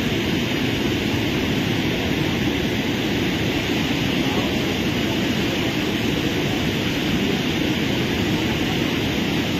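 Steady rushing roar of a swollen, fast-flowing river.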